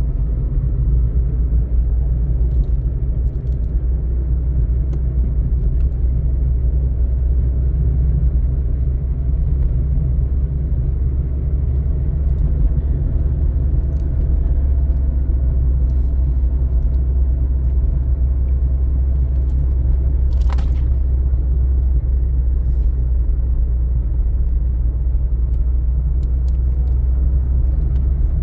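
A steady low rumble, with one brief sharp sound about twenty seconds in.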